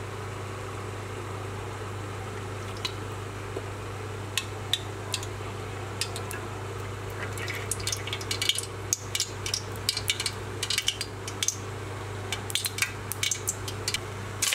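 Oil heating in an aluminium cooking pot, crackling and popping: sparse at first, then many quick pops from about halfway on as it gets hot, over a steady low hum.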